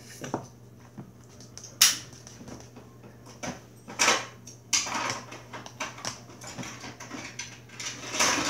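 Metal spoon stirring shaving cream in a plastic cup: a few sharp clicks of the spoon against the cup, with softer scraping between.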